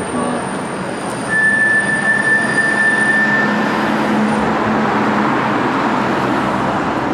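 Heavy vehicle passing on a city street, its noise swelling about a second in, with a steady high-pitched squeal lasting about two seconds.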